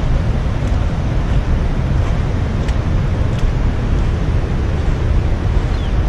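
Steady rushing noise of fast-flowing river water and falls, unbroken, with a heavy low rumble underneath.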